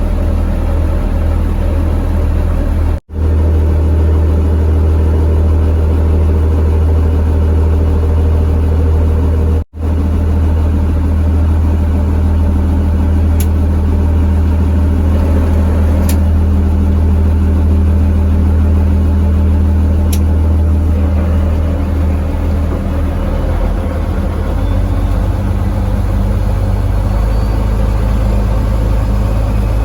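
Fishing boat's engine running at a steady speed, a loud low hum that cuts out briefly twice in the first ten seconds.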